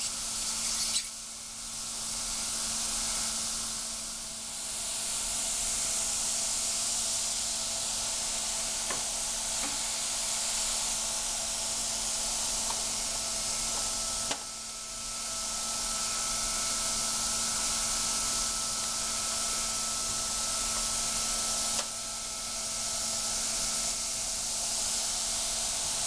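Steady, high-pitched hiss of gas from a cryogenic setup, with abrupt breaks in the sound about a second in, at about 14 seconds and near 22 seconds.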